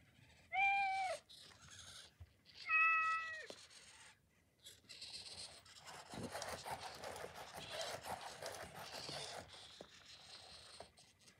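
Elephant Robotics Metacat 2.0 robotic cat meowing twice through its built-in speaker, two short recorded meows about two seconds apart, set off by stroking its head. A quieter, longer whirring and rustling follows as its motorised head turns.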